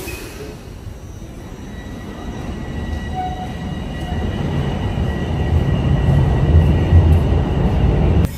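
TTC Toronto Rocket subway train pulling out of the station: a low rumble that builds steadily louder as it gathers speed, with a thin steady electric whine above it. The sound cuts off suddenly near the end.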